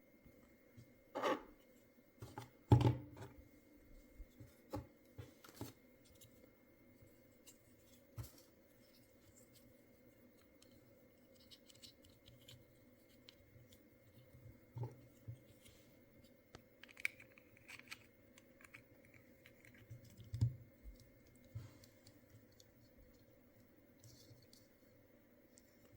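Hands handling small objects on a tabletop: scattered light clicks, taps and scrapes, with a louder knock about three seconds in and another about twenty seconds in, over a faint steady hum.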